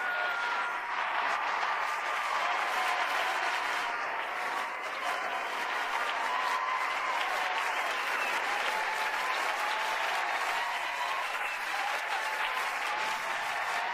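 Game-show studio audience applauding and cheering steadily, with many hands clapping and voices whooping throughout.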